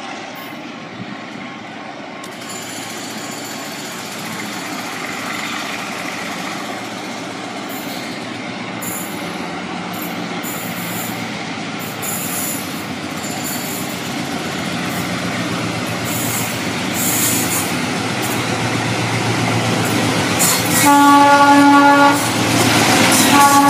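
ALCO diesel-electric freight locomotive approaching, its engine rumble growing steadily louder. The air horn sounds twice near the end, a chord of about a second and then a second blast.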